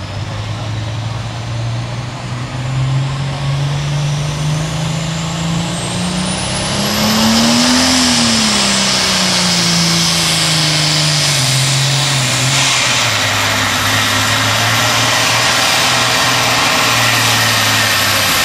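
Turbocharged diesel super farm pulling tractor revving hard, with a high turbocharger whine sweeping up. The engine note climbs to a peak about eight seconds in, then drops back and runs steady and loud under load.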